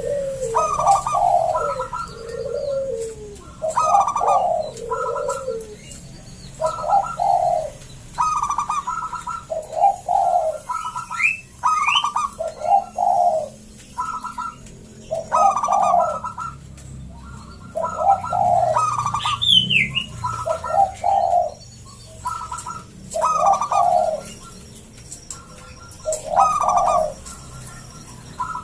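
Local zebra dove (perkutut) singing its cooing song with a thick, big voice, the phrase repeated about a dozen times, every two to three seconds. A small bird chirps twice briefly near the middle.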